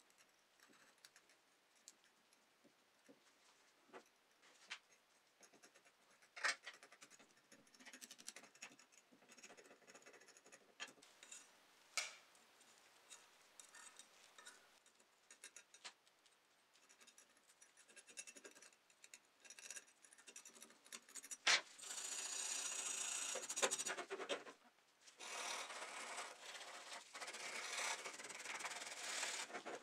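Brush scrubbing the bare metal body of a die-cast model car, rubbing off paint flakes softened by paint remover. Scattered faint clicks and crackles come first. The steady scrubbing starts about three-quarters of the way in and pauses briefly before going on.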